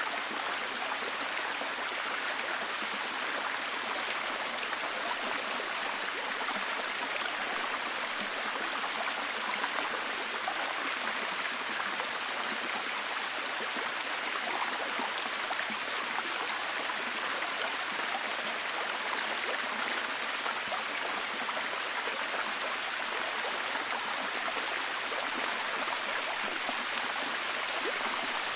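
Rainforest ambience of steady rushing water, with a dense, fine pattering of drops throughout.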